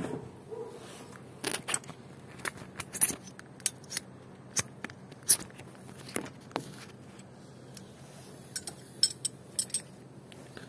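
Scattered sharp metallic clicks and clinks of hand tools being handled and knocked against each other, coming in three short clusters, over a faint steady hum.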